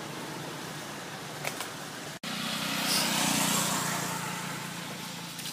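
Steady outdoor background noise: a broad hiss with a faint low hum. It drops out for an instant about two seconds in, then swells louder for a second or two before easing off.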